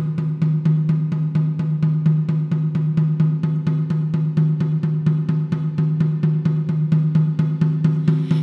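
Hand-held rawhide frame drum beaten steadily with a fleece-padded beater, about five even strokes a second, with a steady low hum beneath the strokes.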